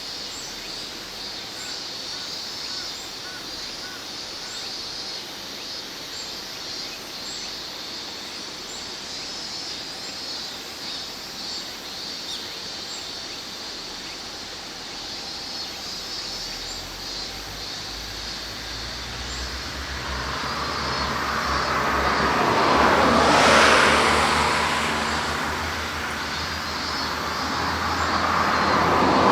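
Insects chirring steadily, then a road vehicle's engine grows louder and passes by about three-quarters in, with a second vehicle approaching and passing right at the end.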